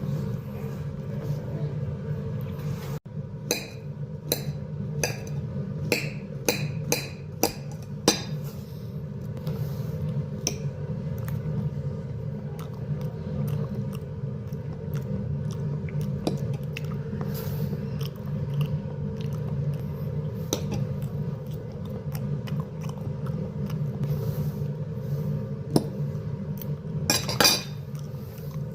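Close-miked eating of a banana: biting and chewing with sharp wet mouth clicks, a quick run of them about two a second early on and a dense cluster near the end, over a steady low hum.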